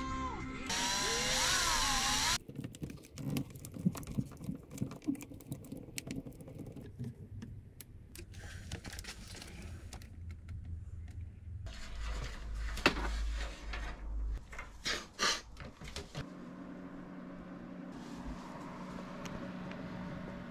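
A power drill whining and changing speed for about two seconds, then scattered clicks and knocks of hardware being handled, and a steady low hum from about four seconds before the end.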